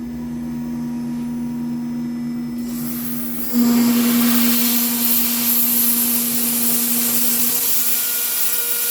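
Spindle of a home-built PrintNC CNC router whining steadily while a 6 mm end mill makes an aggressive boring pass in 6061 aluminium. About three seconds in, a loud hiss of cutting and mist-coolant spray comes in, growing louder half a second later as the cutter bites in.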